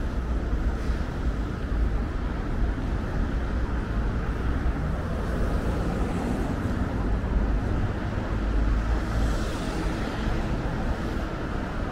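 Steady city road traffic noise: cars running along a multi-lane road with a continuous low rumble. A brighter hiss swells briefly about nine seconds in.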